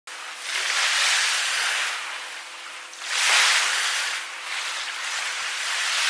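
Ocean surf sound: waves washing in and drawing back, swelling and fading every couple of seconds as a hiss with no deep rumble.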